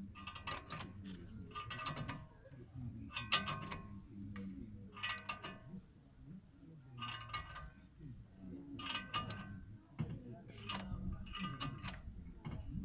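Ratchet wrench and socket clicking in short metallic bursts, one or two a second, as a nut is tightened on a new wheel stud to pull it into the hub, with wrench metal clinking.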